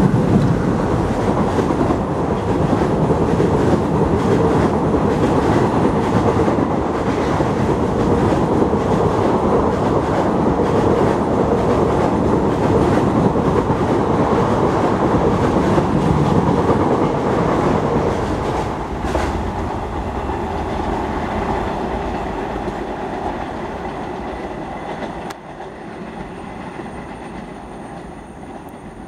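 Diesel-hauled passenger train passing close: the locomotive goes by at the start, then a long run of coaches clattering over the rails, steady and loud before fading, and dropping away suddenly near the end.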